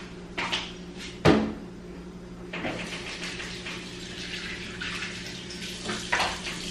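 Kitchen tap running into a sink during dishwashing, with sharp clinks of dishes and glasses. The loudest clink comes about a second in, and the water runs more steadily from about halfway through.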